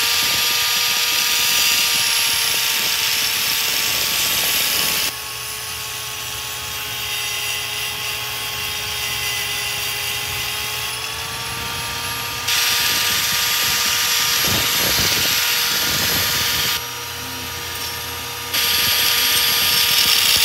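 High-speed rotary cutting tool running steadily with a high whine while cutting the accelerator-cable bracket. A harsh grinding hiss comes in for the first few seconds, again in the middle and near the end, and drops away in between as the wheel bites into the metal and lifts off.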